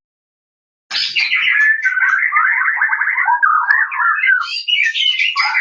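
White-rumped shama of the Medan type singing a fast, varied string of chattering and whistled phrases, starting about a second in.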